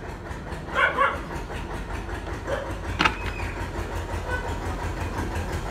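A steady low rumble, with a brief pitched call about a second in and a sharp click about three seconds in.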